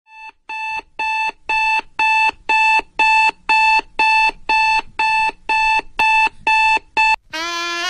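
Electronic alarm clock beeping, about two beeps a second in one steady tone. About seven seconds in the beeping stops and brass music begins.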